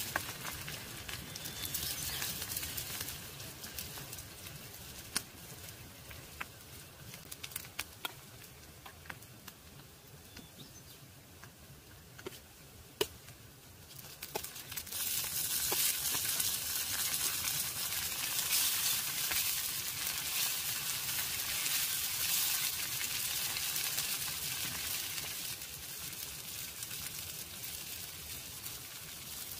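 Food sizzling in a pan over a crackling wood fire, with scattered sharp pops from the burning wood. The sizzling grows much louder about halfway through.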